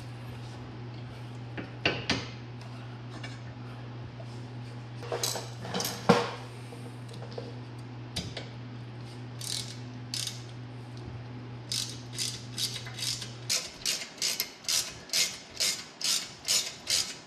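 Socket ratchet working a bolt on a rear brake caliper. First a few scattered metal clinks, then from about twelve seconds in a fast, even run of ratchet clicks, about three a second.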